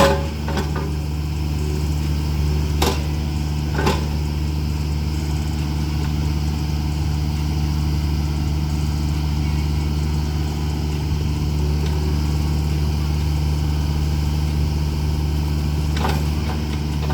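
Takeuchi TB240 compact excavator's diesel engine running steadily, with a few sharp metallic knocks from the machine at the start, around three and four seconds in, and near the end.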